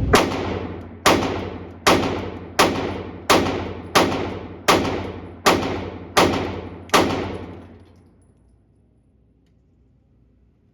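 Ten rapid shots from a 9mm Glock 45 pistol fitted with a Radian Ramjet compensator, fired at an even pace of a bit more than one shot a second, each ringing out briefly. The string runs with no stoppage, in keeping with the pistol cycling reliably on its 15 lb recoil spring.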